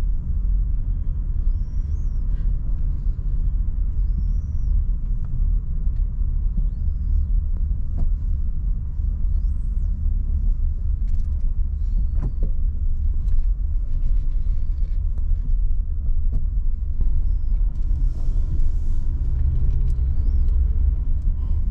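Car driving slowly, heard from inside the cabin: a steady low rumble of engine and tyres on the road.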